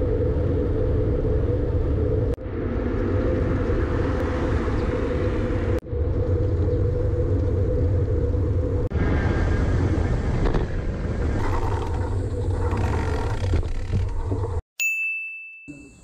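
Wind rumble and road noise on a bike-mounted action camera's microphone while riding along a road. The rumble breaks off briefly at several cuts, and near the end a short, bright ding sounds.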